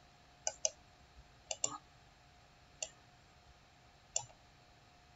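Computer mouse button clicking: a handful of sharp clicks about a second apart, some in quick pairs, over a faint steady hum.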